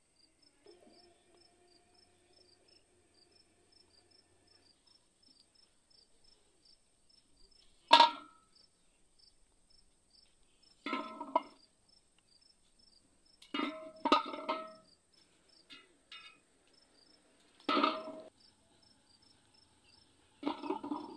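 Plastic bottles knocking against an aluminium pot of water, about six short clunks with a brief metallic ring, the first, about eight seconds in, the loudest. Steady high insect chirping runs behind.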